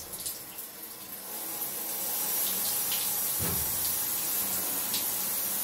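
Small clicks of a plastic propeller showerhead being twisted back onto its handle over running water. About a second in, a steady hiss of water spraying from the showerhead takes over and holds.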